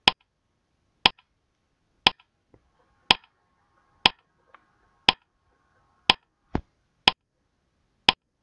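Countdown timer ticking sound effect: nine sharp ticks, one each second, with an extra click about six and a half seconds in.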